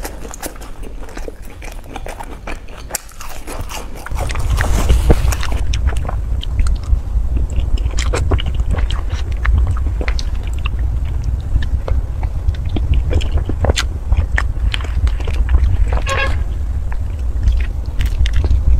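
Close-miked ASMR eating of a soft dessert: many wet mouth clicks and smacks of chewing, with a louder bite about four seconds in. A steady low rumble runs underneath from then on, and a brief pitched squeak comes near the end.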